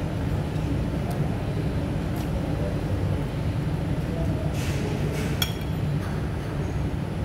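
Light clinks of a metal fork against a ceramic plate, the sharpest with a brief ring about five seconds in, over a steady low rumble.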